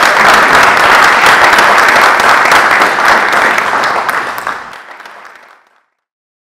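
Audience applauding: many hands clapping together, fading away about five seconds in.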